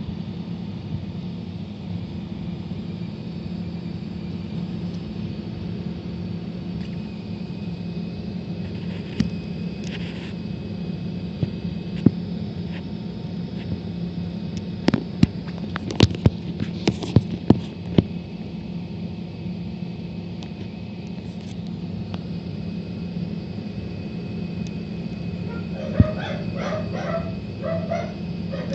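Chieftec 1000 W computer power supply running with a steady high-pitched squeal over a low hum, a squeal that has developed after two years of use. A quick series of sharp clicks sounds about halfway through, and a dog barks several times near the end.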